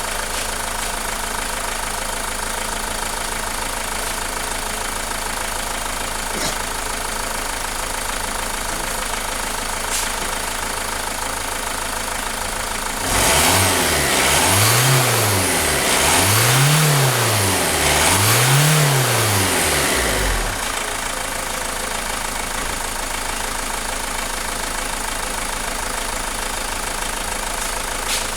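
Renault Mégane II engine idling, revved three times in a row about halfway through, its pitch rising and falling with each rev before settling back to idle. The engine is under diagnosis for vibration, shaking and lack of power.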